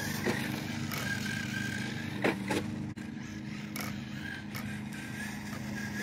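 Kyosho Fazer MK2 radio-controlled car running on cracked asphalt: a steady electric-motor whine with tyre noise, and two sharp clicks about two and a half seconds in.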